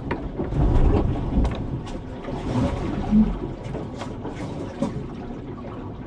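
Contessa 26 sailboat beating to windward in a rough sea, heard from inside the cabin: water rushing and surging along the hull, with wind and a few sharp knocks. A heavier surge of water about a second in is the loudest moment.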